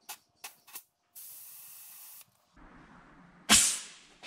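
Compressed air on a tyre changer while a tyre is inflated on its steel wheel. A few small clicks, then a steady hiss for about a second, then a rougher rush of air and, near the end, one loud sudden blast that dies away over about half a second.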